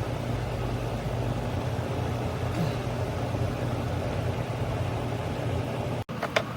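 A steady low mechanical hum, like an engine idling, that cuts off abruptly near the end, followed by a few short sharp clicks.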